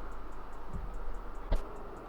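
Light clicks from handling computer hardware: a few faint ticks and one sharp click about one and a half seconds in, over a steady low hum.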